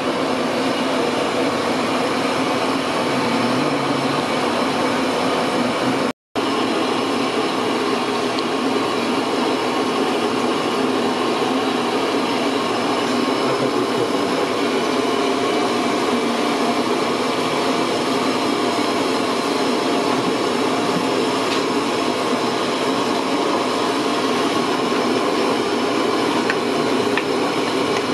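Steady rushing roar of large aluminium biryani pots cooking over high heat, the rice water at a rolling boil. The sound drops out for a moment about six seconds in.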